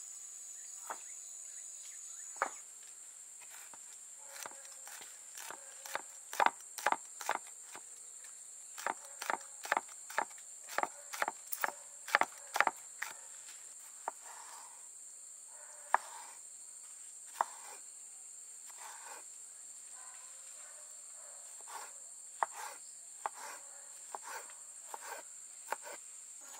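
Kitchen knife chopping green chillies and tomatoes on a wooden cutting board: irregular sharp knocks of the blade on the board, busiest in the first half. Under it, a steady high-pitched drone of insects.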